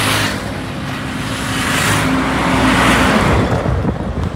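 Traffic on a busy city road: cars passing close by with tyre noise and engine hum, the loudest swelling up about three seconds in and then fading.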